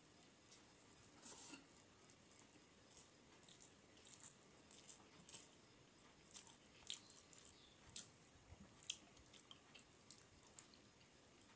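Faint, wet squishing and irregular soft clicks of a hand mixing rice and fish curry on a metal plate, with chewing.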